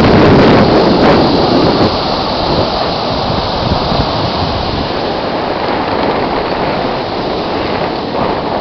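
Ocean surf rushing, mixed with wind buffeting the camera microphone as a low rumble; louder for the first couple of seconds, then steady.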